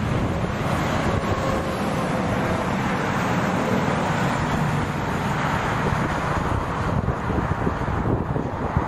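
Heavy trucks passing on a highway: a steady mix of diesel engine drone and tyre noise, loudest around the middle as a semi-trailer goes by.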